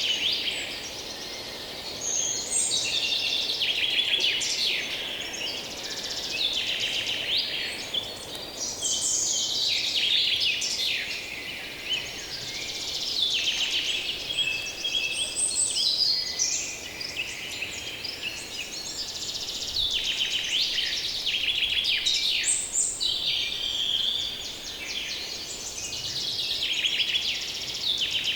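Many songbirds singing and calling at once in a dense chorus of overlapping chirps and trills, over a faint steady background hum.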